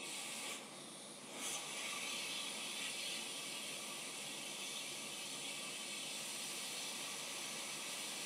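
Hot-air rework station blowing a steady hiss of air onto a MOSFET as it is reflowed onto a laptop motherboard. The airflow drops briefly about half a second in and picks up again a second later.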